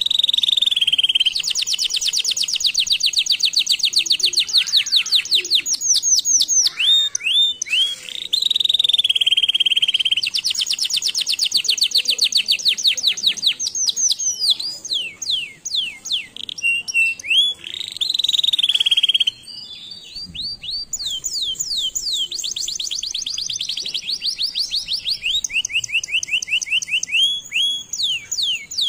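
Domestic canary singing: long, fast trills of rapidly repeated notes, switching between rolls of different speed and pitch, with a short break about twenty seconds in.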